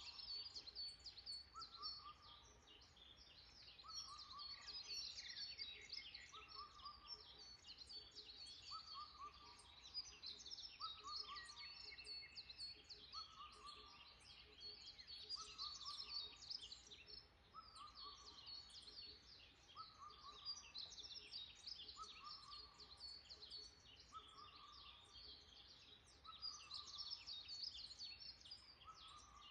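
Faint chorus of birds chirping in woodland, many quick high chirps overlapping throughout. Under them a lower short call repeats steadily, about once every two seconds.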